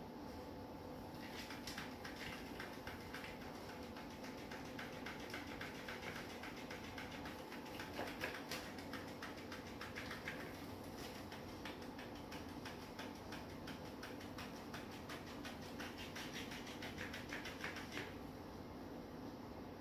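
Electric flopping fish cat toy running in a cat's grip, its flapping tail giving a faint, rapid, even clicking that stops about two seconds before the end.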